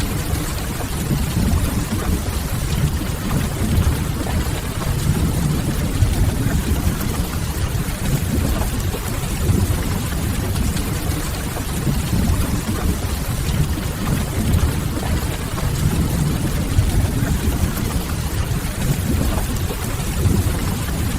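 Steady rain over a deep, constant rumble. No single sound stands out.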